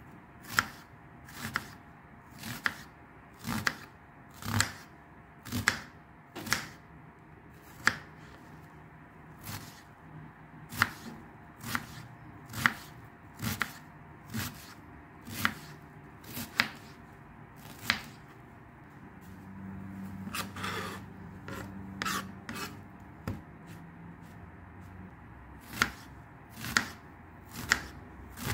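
Kitchen knife chopping an onion on a plastic cutting board: sharp knocks of the blade on the board, about one a second. The chopping pauses for several seconds about two-thirds of the way through, then starts again.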